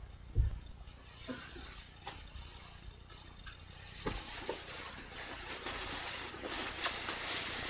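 Handling noise: a soft thump about half a second in and a few light knocks, then rustling and shuffling from about four seconds on as a person leans over and rummages for the next item.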